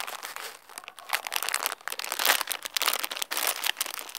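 A snack bag crinkling and rustling in the hands as it is opened, in a rapid, irregular run of crackles.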